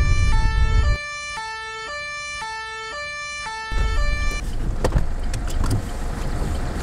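French-style two-tone police siren alternating between two notes about every half second. It stops about four seconds in, leaving the rumble of a car on the road with a few sharp clicks.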